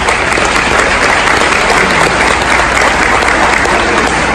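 An audience applauding, with loud, dense, steady clapping from many hands.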